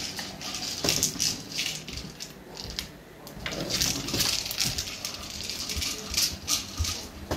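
A dog snuffling and nosing along the floor in short, irregular bursts, in clusters about a second in and again around four and six seconds in.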